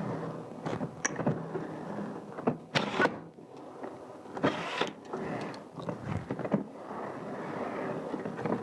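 Rovin Ecospin 2-litre manual washing machine being hand-cranked with rinse water inside: a continuous plastic whirring as the drum spins, with sharp knocks now and then from the unlatched lid turning back and forth.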